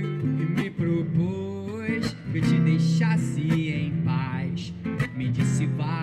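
Live busking music: a guitar strummed steadily under a wavering lead melody line.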